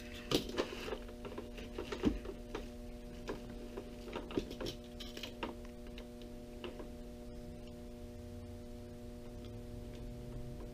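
Light clicks and crinkles of plastic vacuum-sealer bag material and a tape measure being handled, scattered through the first half or so, over a steady low hum.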